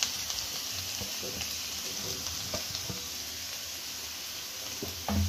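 Grated carrots sizzling in hot ghee in a non-stick kadhai, with a spatula scraping and tapping the pan as they are stirred. A louder knock comes near the end.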